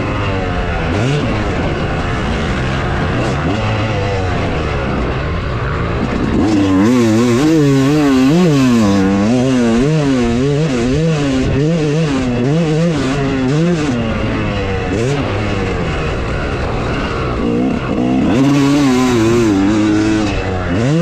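Yamaha YZ250 two-stroke motocross bike engine revving up and down over and over as it is ridden, the pitch swinging repeatedly. It is loudest about a third of the way in and again near the end.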